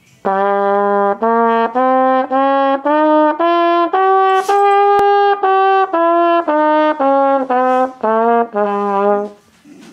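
Trumpet playing a scale of about fifteen short separate notes, climbing about an octave and back down, then stopping.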